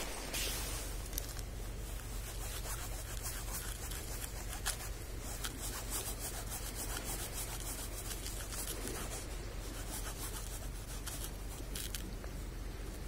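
A knife blade scraping and shaving a chunk of cork on a flat stone, in many short, quick scraping strokes.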